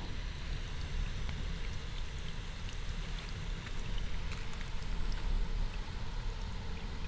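Water hissing and spraying from a quarter-inch drip irrigation line onto mulch and soil, steady under a low, uneven rumble.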